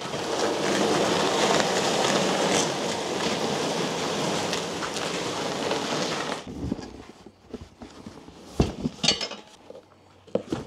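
A loud, even rushing noise that cuts off suddenly about six seconds in. Then come several dull knocks and thumps of cardboard shipping boxes being handled and set down on a larger box.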